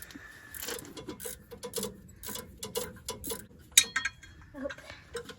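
Ratchet wrench clicking in short, uneven spurts as a bolt on the Chevy G30 van's water pump and bracket assembly is worked loose, with a sharper ringing metal clink about four seconds in.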